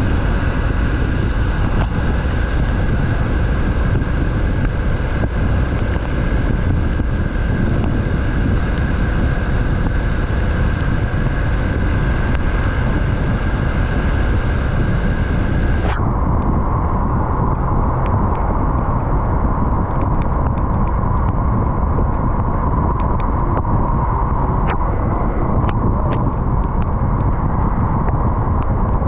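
Yamaha MT-03 motorcycle riding, engine running steadily under wind rush over the microphone. About halfway through, the sound suddenly turns duller, the hiss above it dropping away, with a few faint ticks after that.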